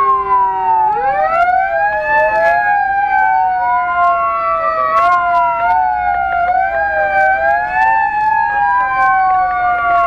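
Electronic siren of a Renault GBA fire engine wailing on an emergency run, several overlapping tones sliding slowly up and down, heard from inside the cab over the low rumble of the truck.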